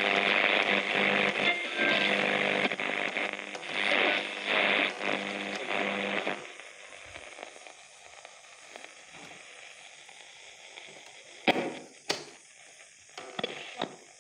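Philips Philettina MW/SW transistor radio playing loud, static-laden reception through its speaker. The sound drops off sharply about six seconds in as a knob is turned, leaving faint crackling static with two sharp clicks near the end.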